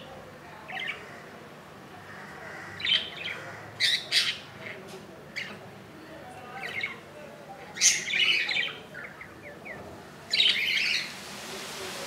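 Budgerigars giving short, scratchy squawks and chirps, one call every second or so, with a longer chattering call about eight seconds in.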